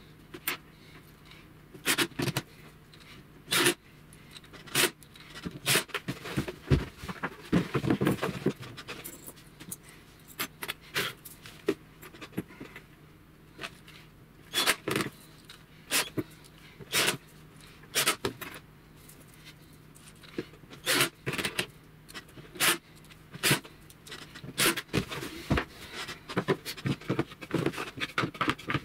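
Irregular clicks, clinks and knocks of small metal parts (screws and hinges) and laminated plywood panels being handled on a workbench, with short gaps between them.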